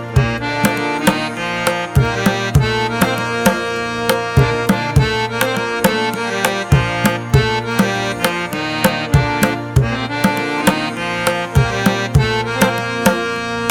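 Background music: a steady drum beat with plucked and sustained melodic instruments over it.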